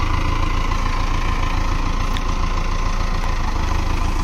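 Farm tractor's diesel engine running steadily at low revs as the tractor creeps forward, with an even low throb of firing pulses and a thin steady whine above it.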